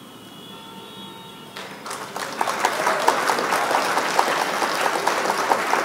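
Applause sound effect that starts about a second and a half in, greeting the revealed quiz answer; before it, only a faint steady background with a few thin tones.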